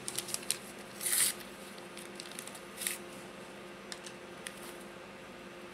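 Sharp microwave oven running with a steady low hum while heating water, under small clicks and handling noises of wires and connectors being worked by hand, with two short rustles, the loudest about a second in and another near three seconds.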